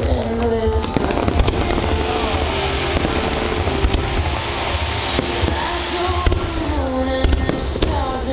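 Fireworks going off in a rapid string of sharp bangs and crackles over a steady low rumble, with a song playing through loudspeakers underneath.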